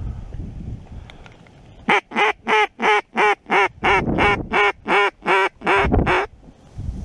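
A long, even series of about a dozen loud mallard-style quacks, about three a second, starting about two seconds in, in the manner of a hen mallard hail call. Wind noise on the microphone before and after.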